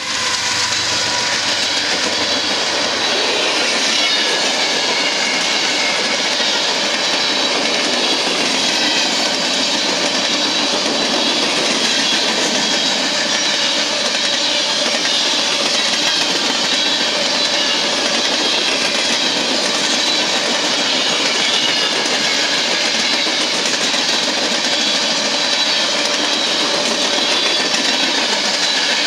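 A fast empty coal train passing close by, its empty coal cars' steel wheels running on the rails in a steady, loud rush with a clickety-clack.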